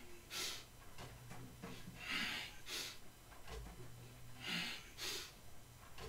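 A man breathing hard from exertion during a bodyweight exercise on a power tower: sharp breaths, mostly in pairs about every two and a half seconds, over a faint low hum.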